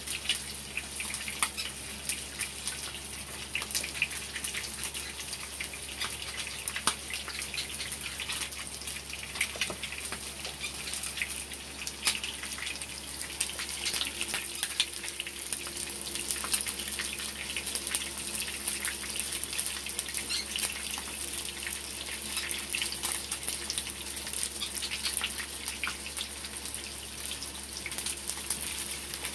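Hot oil sizzling and crackling steadily in a frying pan of breaded chicken pieces, with many small pops throughout.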